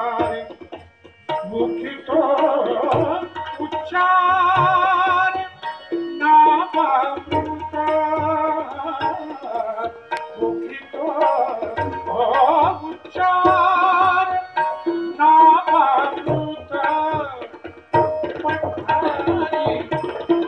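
Devotional bhajan music: a singer holding long, wavering notes, with harmonium and hand-drum accompaniment.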